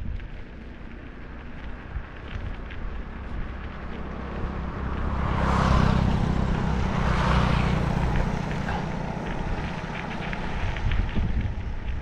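Motorcycle passing close by and pulling away, its engine hum swelling to its loudest about six seconds in and then fading, over wind noise on the microphone.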